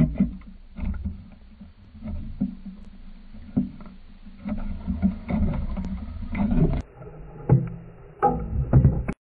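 Low underwater rumble picked up by a submerged camera, with irregular knocks and clicks. In the last second, a crucian carp thrashes and splashes at the water surface.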